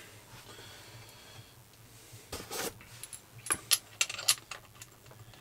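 Camera and gimbal hardware handled by hand: a soft scrape a little before halfway, then several sharp clicks and light clatter of small hard parts.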